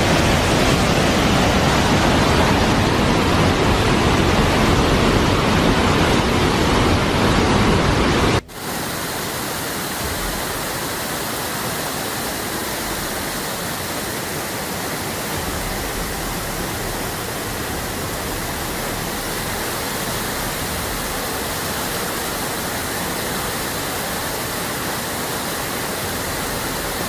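Muddy flash-flood water rushing in a loud, steady wash. About eight seconds in it changes abruptly to a quieter, steady rush of floodwater.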